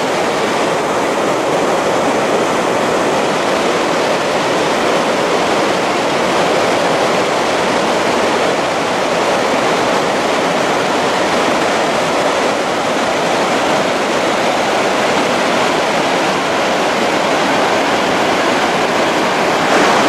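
Låtefossen, a 165 m waterfall in Norway, and the white-water river at its foot rushing over boulders at close range: a loud, steady rush of falling water without a break.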